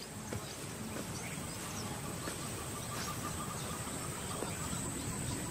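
Bush ambience with a steady high-pitched insect drone.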